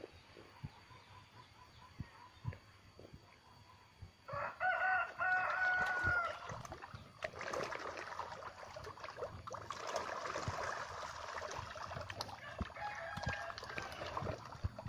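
A rooster crows once, about four seconds in, for roughly two seconds, and gives a fainter crow near the end. From about seven seconds on, catfish feeding at the pond surface splash and churn the water in a dense crackle of small splashes.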